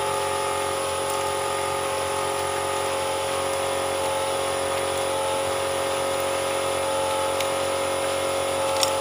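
Air compressor running with a steady hum and a constant tone, supplying the air nailer. A few light clicks near the end.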